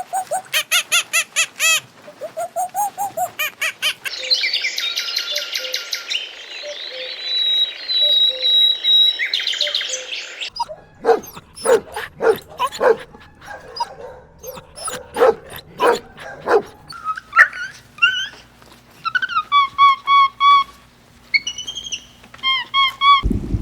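A string of different animal calls, cut one after another. First come rapid repeated squeaky calls, then a chirping bird chorus over a hiss, then sharp clicks and short calls, then short repeated bird chirps. Running water starts just before the end.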